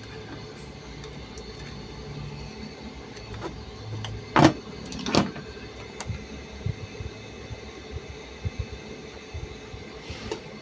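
Two loud knocks about a second apart, followed by scattered lighter clicks and taps, over a faint steady hum.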